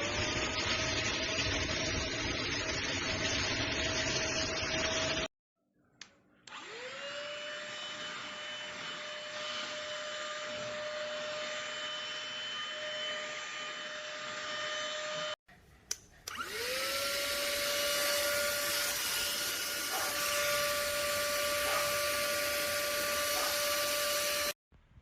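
Motor of the ST6101 cordless handheld car vacuum cleaner running with a steady whine and airflow hiss, in three runs. In the second and third runs the pitch rises as it spins up to speed. Each run stops abruptly.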